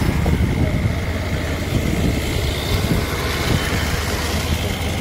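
Steady engine hum with road and wind noise from a vehicle moving along a road, heard from on board.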